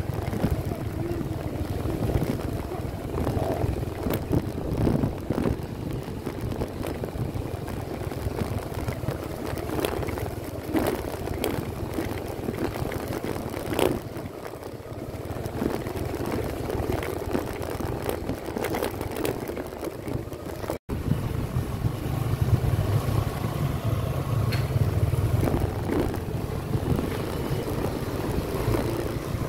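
Motorcycle engine running steadily as the bike rides along a rough dirt road, with wind rumble on the microphone and scattered knocks from the bumpy ground. The sound cuts out for an instant about two-thirds of the way through.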